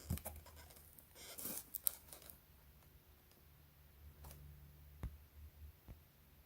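Faint handling noises from the ratchet tie-down packaging as it is turned over: a few light scrapes and taps, clustered about a second in and again around four to five seconds.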